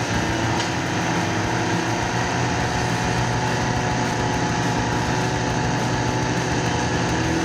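Chainsaw engine running steadily, holding a constant pitch.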